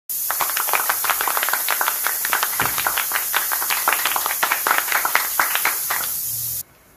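Battered squid rings deep-frying in hot oil: a steady high hiss with dense crackling pops that cuts off suddenly near the end.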